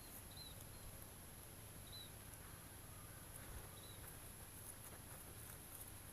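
Very quiet: faint rustling and scratching of fingers in loose soil and dry roots, with a few faint, short, high chirps now and then.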